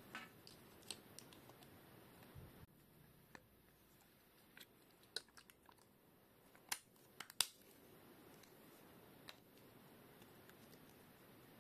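Small clicks and taps from hands handling a GoPro HERO 12 action camera, scattered irregularly, with the sharpest two about seven seconds in.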